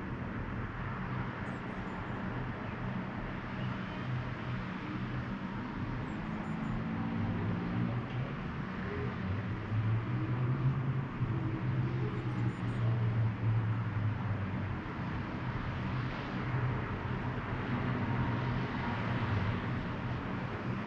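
Outdoor town ambience: distant road traffic with a steady hiss and a low engine hum that swells for a few seconds about ten seconds in as a vehicle passes.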